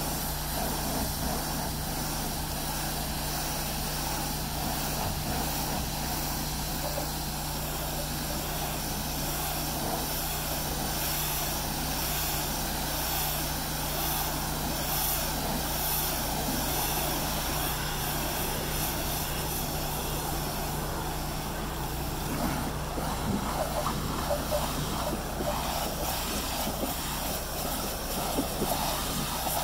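Pressure washer running with a steady drone while its wand jets water against the back of a box truck, giving a constant spray hiss. In the last several seconds the spray sound turns more uneven, with brief louder spikes.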